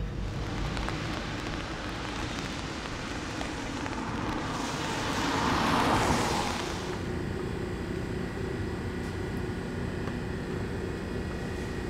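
Steady hum and rushing noise of kitchen machinery, with a louder rush that swells and fades over about three seconds near the middle.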